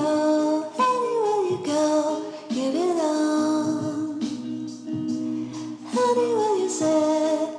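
Background music with a sung vocal melody, phrases falling in pitch and repeating about once a second.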